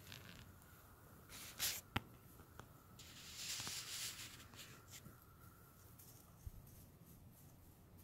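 Quiet outdoor ambience with faint rustling, a single sharp click about two seconds in, and a longer soft rustle around the middle.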